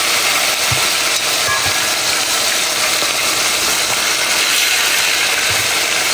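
Fish frying in hot oil: a loud, steady sizzle.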